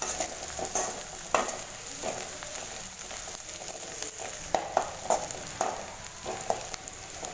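Chopped onions and curry leaves sizzling in hot oil in a metal kadai as a metal spoon stirs them, knocking and scraping against the pan several times.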